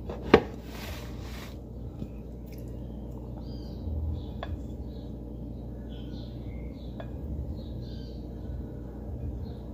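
Serrated knife cutting a block of cooked condensed milk on a plate: a sharp click of the knife against the plate about a third of a second in, then a few faint ticks, over a steady low hum with faint high chirps.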